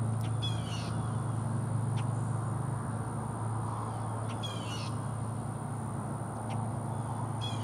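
An animal call, three times about four seconds apart, each a short run of high-pitched notes, over a steady low hum.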